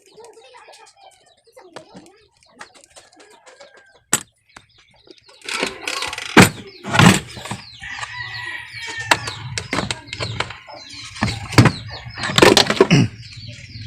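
Plastic air filter housing of a car being handled and opened and the old paper air filter pulled out. Faint clicks at first, then loud rustling and several sharp plastic clacks in the second half, with a low steady hum joining about halfway.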